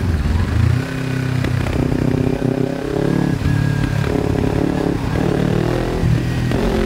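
Kawasaki Ninja 300 parallel-twin engine running through an aftermarket exhaust while riding, the revs rising and falling several times. Small pops come from the exhaust.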